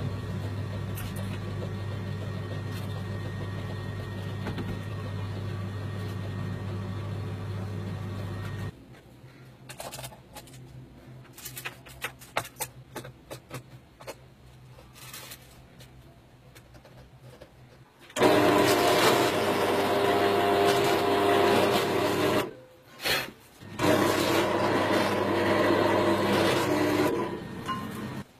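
A steady mechanical hum that stops sharply about a third of the way in, followed by small clicks and taps of hand work. Near the end an electric drill runs in two long bursts with a brief pause between them, boring into wood.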